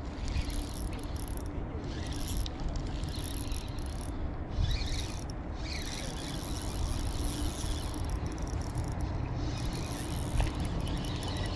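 Wind noise buffeting the microphone, with a steady high hiss and an occasional light knock.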